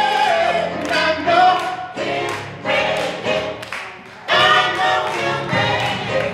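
Choir singing a hymn, in sung phrases that break and resume every second or so.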